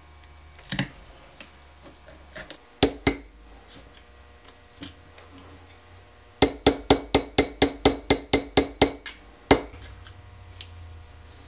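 Hammer tapping a snap-setting tool on an anvil to set a metal snap fastener in a leather sheath strap: a couple of sharp knocks, then a quick run of a dozen or so ringing taps at about five a second, ending with one last strike.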